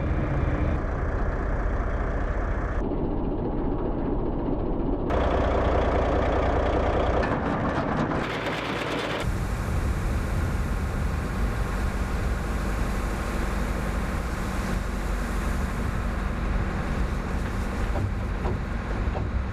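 A vehicle engine running steadily, heard across several cut clips whose sound changes abruptly in the first half, then one steady stretch.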